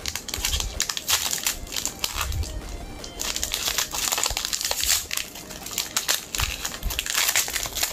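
Foil wrapper of a Pokémon card booster pack crinkling and crackling in the hands as it is torn open and the cards are pulled out.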